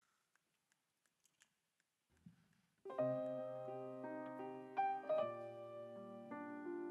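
Grand piano opening the song with sustained chords, which come in about three seconds in after near silence broken by a few faint clicks.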